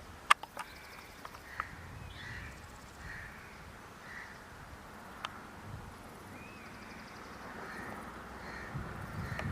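Birds calling repeatedly in short caws, with a few sharp clicks in the first couple of seconds, the loudest about a third of a second in.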